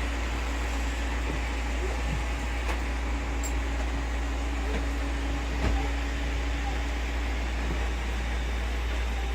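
Several robot vacuums running at once: a steady motor whir over a low hum, with a few light clicks and one thump a little over halfway through.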